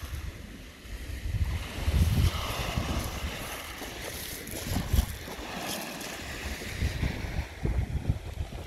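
Wind buffeting the microphone in uneven gusts, over small waves washing onto a shingle beach, with one sharp knock about five seconds in.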